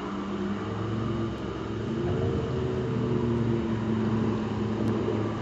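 A motor's steady drone, its pitch rising and falling slightly about two seconds in.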